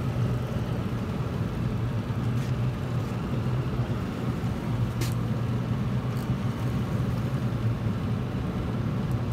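Boat motor running steadily at trolling speed, a continuous low hum with water and wind noise, and a few faint sharp clicks.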